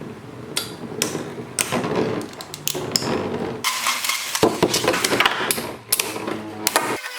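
Toy battle spinning tops clashing: a rapid, irregular run of sharp clacks and knocks.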